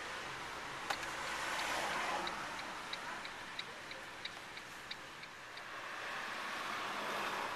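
Car turn-signal indicator ticking steadily, about three clicks a second, for about four seconds, beginning just after a single sharp click and stopping a little past halfway, heard inside the car's cabin over steady road noise.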